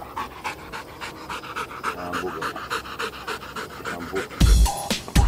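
Rottweiler panting rapidly and evenly, mouth open and tongue out, as it lies being stroked. A heavy low rumble on the microphone comes in about four seconds in and is the loudest thing near the end.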